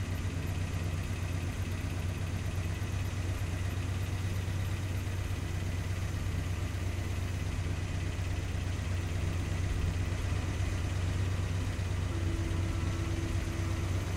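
Ford F-1 pickup's engine idling with a steady low drone.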